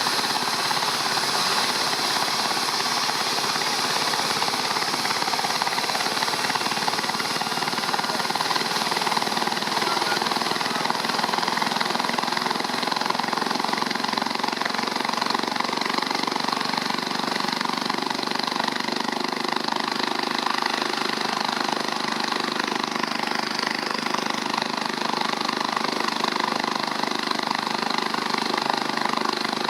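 Rescue helicopter's turbine engines and rotor running steadily close by, a high whine over a dense throbbing chop, with a brief dip and rise in the whine a little past two-thirds of the way in.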